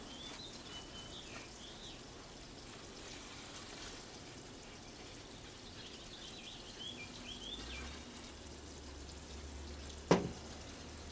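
Birds chirping in the background, with a low steady hum coming in past the middle and a single sharp knock about ten seconds in.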